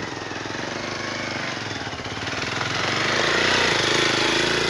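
Motorcycle engine running with a fast, even pulse as the bike pulls away, growing louder and rising in pitch about halfway through as it picks up speed, with a rushing noise building alongside.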